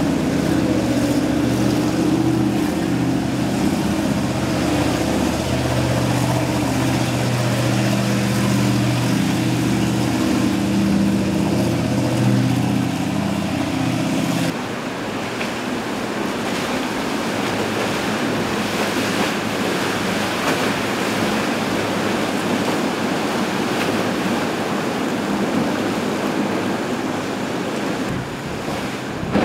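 Sea Ray 260's engine running steadily under power with the rushing splash of churned-up waves. About halfway through, the engine sound cuts off abruptly, leaving rushing waves and wind buffeting the microphone.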